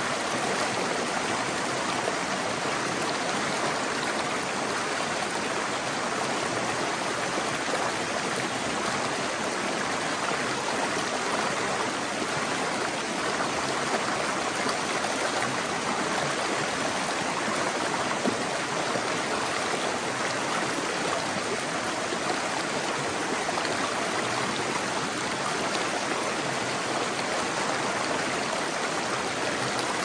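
Shallow freshwater creek flowing and rippling over rocks, a steady rushing and gurgling of water.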